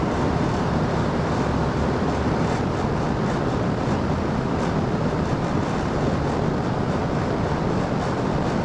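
Outdoor air-conditioning condenser unit running, a steady even rushing noise from its fan and compressor.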